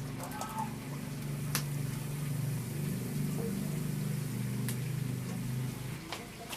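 A steady low motor hum that stops about six seconds in, with a few faint clicks over it.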